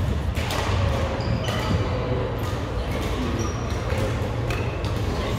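Badminton rally in a large hall: sharp racket hits on the shuttlecock, over background chatter and a steady low hum.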